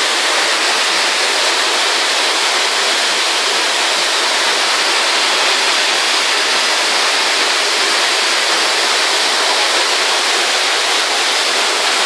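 Giessbach waterfall plunging, heard at close range beside its falling curtain: a loud, steady rush of water with no let-up.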